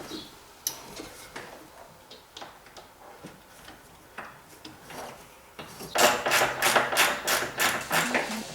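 Scattered light clicks and knocks, like small parts and tools being handled. About six seconds in, a much louder, fast rhythmic pattern starts at about four beats a second, with a shifting pitched line under it that suggests music.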